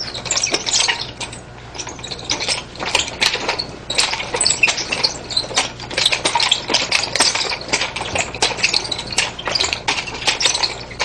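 Wooden chain-linked nunchaku being twirled, wrapped and caught: the chain rattles and the sticks clack against the hands in a rapid, irregular run of clicks.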